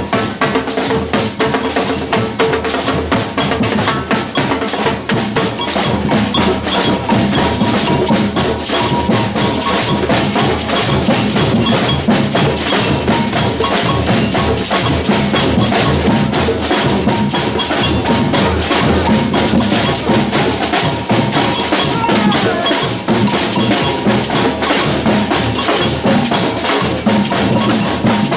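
Batucada samba percussion ensemble playing a dense, driving rhythm on drums and hand percussion, loud and unbroken.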